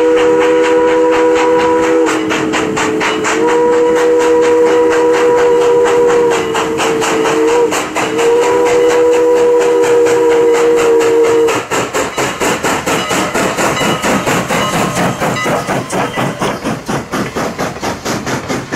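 Canadian National 2-6-0 #89 steam locomotive blowing its whistle, a chord of several notes, in long blasts with brief breaks for a grade crossing, over a quick, even beat of exhaust chuffs as it works upgrade. The whistle stops about two-thirds of the way through, and the rhythmic beat goes on as the coaches pass.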